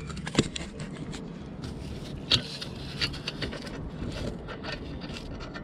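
Light metallic clicks and scrapes as an M12 x 1.25 nut is handled and threaded by hand onto a stud on an exhaust header flange, over a steady low background rumble.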